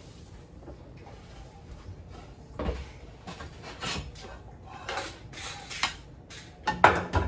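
Scattered light knocks and clatter of kitchen items being handled and moved about, with a cluster of sharper knocks near the end.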